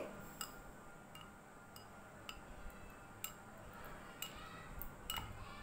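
Small metal spoon clinking lightly against the rims of two bowls as milk is spooned from one into the other: faint, separate ticks every half second to a second.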